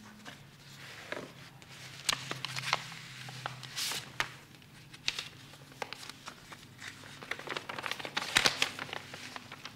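Paper rustling and crackling in short, irregular strokes as a folded sheet of letter paper is handled and unfolded, over a low steady hum.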